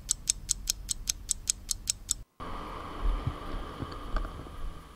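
Clock-ticking sound effect, about five quick ticks a second, that cuts off suddenly about two seconds in. Then faint room tone with a steady hum and a few soft knocks.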